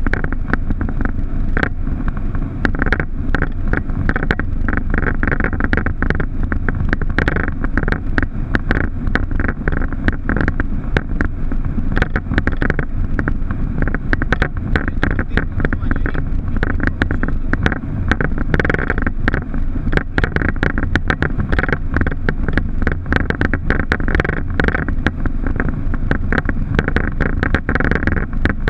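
Steady cockpit noise of a Boeing 737: low engine and airflow rumble with a hiss on top, broken by many quick irregular clicks and rattles.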